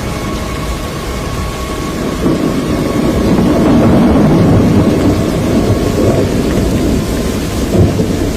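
Low rumbling roar of storm wind, swelling about two seconds in and easing off, with a brief louder surge near the end.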